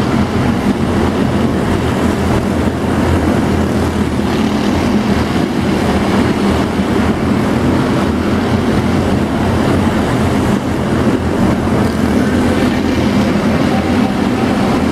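Engines of several small stock cars racing together around a tight indoor oval, a loud, steady drone throughout.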